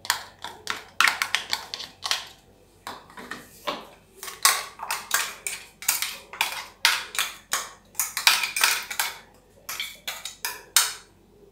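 Ground masala paste being scraped and tapped out of a stainless steel mixer-grinder jar onto a steel plate: a quick, irregular run of metal scrapes and clinks.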